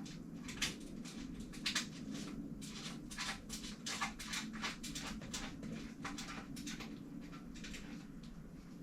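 Irregular light clicks and rustles of hands handling bicycle parts and cable during work on the derailleur mount, over a steady low hum.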